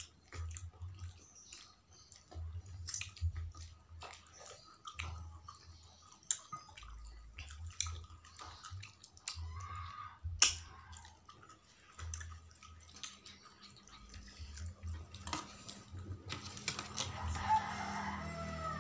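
Eating by hand from a curried snapper head: wet smacks, sucking and squelching of fingers and mouth in yellow curry gravy, many short clicks in an uneven run over dull low thuds.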